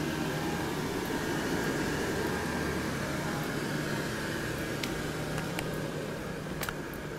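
Steady mechanical hum and whir with a low drone, broken by a few light clicks near the end.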